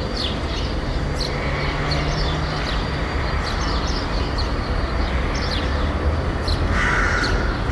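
City street ambience: a steady rumble of distant traffic with small birds chirping. A crow starts cawing near the end.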